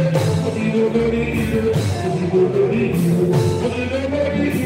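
Live Fuji music played loud through a PA: a man sings into a microphone over band accompaniment with percussion hits and a low bass line.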